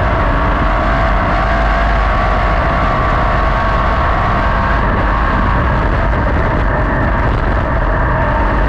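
410 sprint car's methanol-burning V8 running hard at racing speed, heard from the car's own onboard camera, its pitch holding fairly steady throughout.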